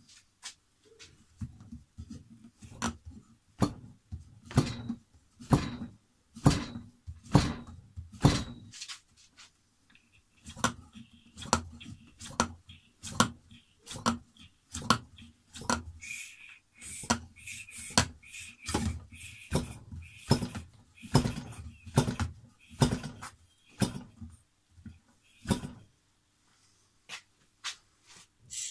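44cc twin-cylinder model aircraft engine being hand-flicked over by its wooden propeller, about once a second, each flick a short knock against compression. The engine does not catch and run, and the flicking pauses near the end.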